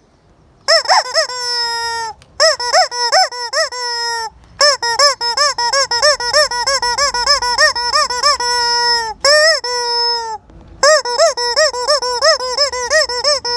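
A noise-making chicken letting out bouts of rapid, high-pitched squeaking calls. Each bout is a fast run of short rise-and-fall squeaks ending in one long held note, about four bouts with short gaps.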